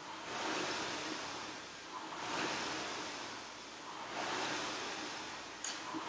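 Air-resistance rowing machine being rowed hard: its flywheel fan whooshes up with each drive and dies away, about one stroke every two seconds.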